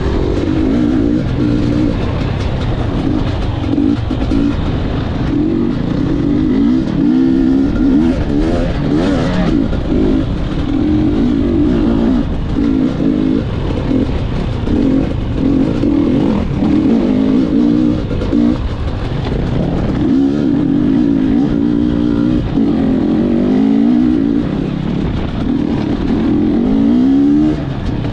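Gas Gas EC 250 two-stroke dirt bike engine under way, revving up and down over and over as the throttle is worked.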